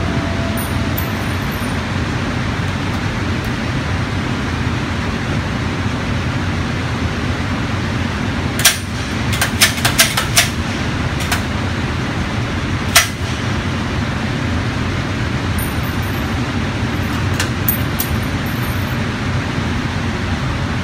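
Steady low rumble of an indoor shooting range's background noise, with a cluster of sharp clicks and knocks about nine to thirteen seconds in, and a few fainter clicks later, as the rifle is handled. No shots are fired.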